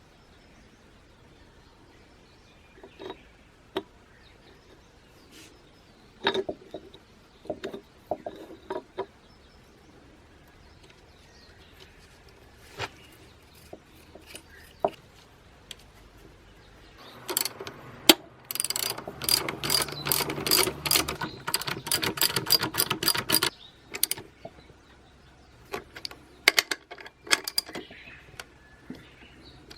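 Metal parts and hand tools clinking and knocking as the transmission is worked on, with about six seconds of rapid ratcheting clicks a little past the middle.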